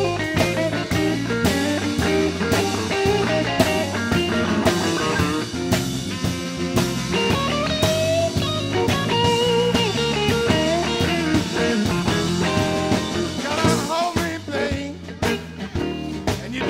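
A live blues band playing an instrumental passage, with no singing. An electric guitar plays a lead line with string bends over bass and a steady drum-kit beat. The playing thins out briefly near the end.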